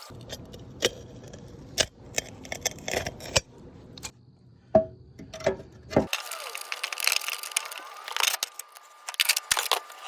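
Irregular metallic clinks and knocks of hand tools working on the front shock and strut parts, with short quieter gaps; about six seconds in the sound changes abruptly and the clinking goes on higher and brighter.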